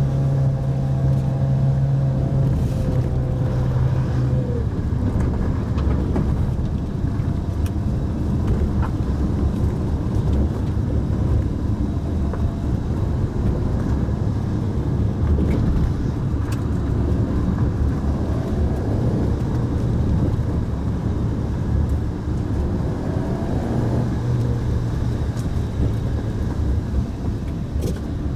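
Pajero Mini's small kei-car engine running under way, with tyre and road noise, heard from inside the car. A steady engine note drops away about four seconds in as the revs fall, and a clear engine note comes back near the end.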